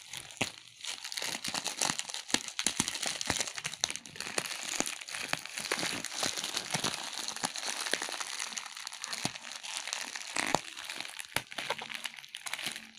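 Plastic courier mailer bag crinkling and crackling as hands pull and tear at it to get it open, a dense run of sharp irregular crackles.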